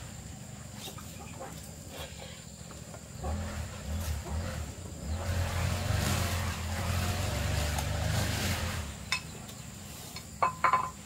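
A motor running, louder from about three seconds in to about nine seconds in, with a few sharp clicks near the end.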